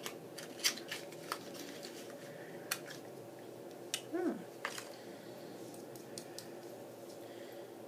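A small cardboard product box and a cream eyeshadow pot being opened and handled by hand: scattered light clicks and taps of packaging. A short murmur of a voice about four seconds in.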